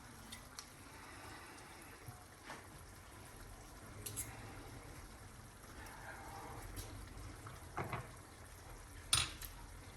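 Knife cutting into a chicken breast in a frying pan: a few light knocks of the knife against the pan over a faint steady hiss, the loudest knock near the end.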